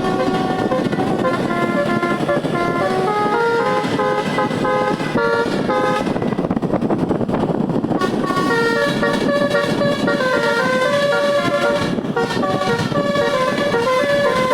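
A bus's musical air horns (telolet) playing a tune of held notes stepping up and down, over the rumble of the running bus. The tune breaks off for a couple of seconds about halfway through, then starts again.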